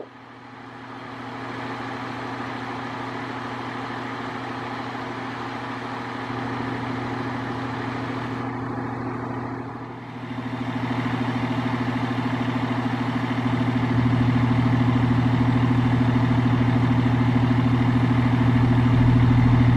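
A fire truck's diesel engine running with a steady, deep drone. It grows louder about halfway through and again a few seconds later.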